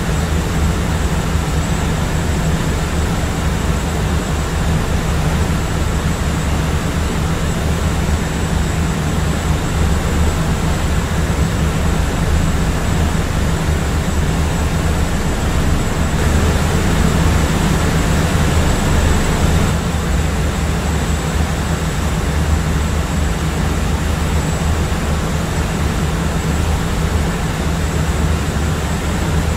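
Airplane cabin noise in flight: a constant low engine drone under a broad rushing hiss, with a thin steady high whine on top. The hiss swells slightly for a few seconds about halfway through.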